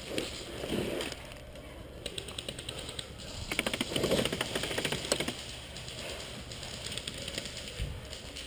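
Paintball guns firing in rapid strings, a fast run of popping shots about a second and a half in and a longer, louder run from about three and a half to five seconds in.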